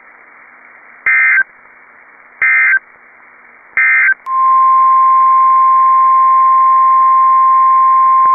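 Three short bursts of SAME digital data tones from NOAA Weather Radio, about a second apart: the end-of-message code closing the previous warning. About four seconds in, the steady 1050 Hz weather radio alert tone starts, announcing the next warning.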